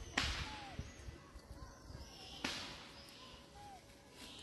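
A young macaque biting and tearing into the rind of a green mango: two sharp crunches about two seconds apart, each trailing off in a short fading hiss.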